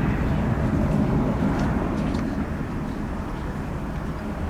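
Low, steady rumble of the Airbus A319CJ's twin jet engines after take-off, easing off slightly as the aircraft climbs away.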